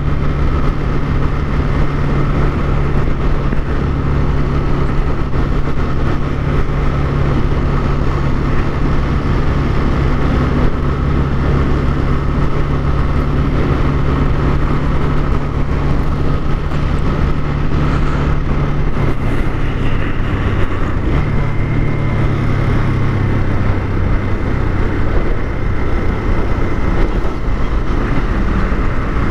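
Motorcycle engine running steadily under a rider on the move, with a dense low road rumble. About two-thirds of the way through, the engine note steps down in pitch.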